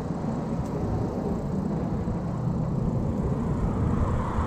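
Steady rumble of wind on the microphone and tyres rolling on concrete while a bicycle is ridden along a sidewalk, swelling a little near the end.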